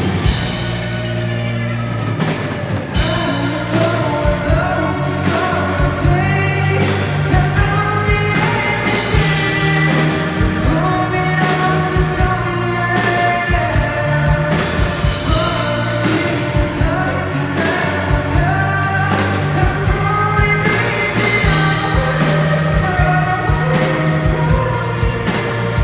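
Rock band playing live: a lead vocal sings over drum kit, bass and guitars.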